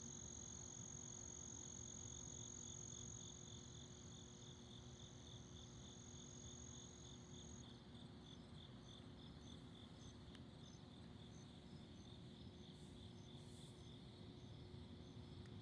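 Faint night chorus of crickets and other insects. A continuous high trill runs until about halfway through and then stops, leaving rapid, evenly pulsed chirping.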